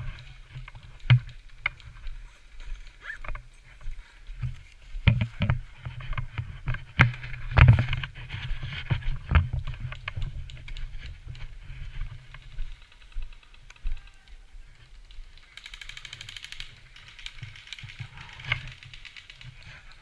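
Rustling and knocking of a body-worn camera on the move, with scattered sharp clicks and thumps over a low rumble. A short rapid rattle comes about sixteen seconds in, likely an airsoft gun firing a burst.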